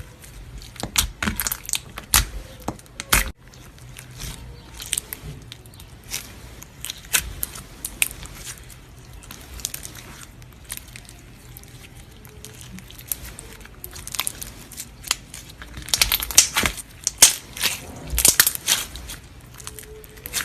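Slime being squeezed and worked by hand, giving off irregular crackling and crunching pops, with a dense, loud flurry of them near the end.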